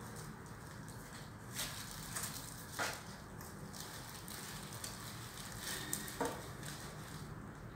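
Faint crinkling and rustling of a plastic bag as cats shift on it, a few short rustles over a low background.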